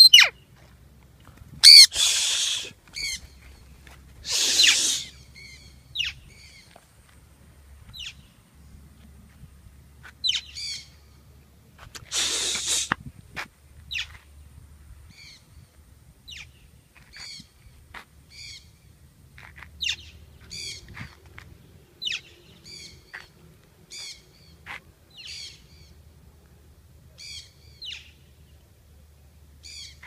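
Parrots (an Alexandrine parakeet and a sun conure) calling: loud harsh screeches about two, four and twelve seconds in, with many short, high chirping calls repeating about once a second between them.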